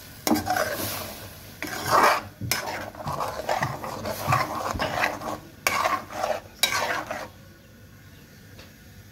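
Metal spatula stirring chicken pieces through tomato gravy in a metal pot, with irregular scrapes against the pot's sides. The gravy sizzles. The stirring stops about seven seconds in, leaving a faint steady hiss.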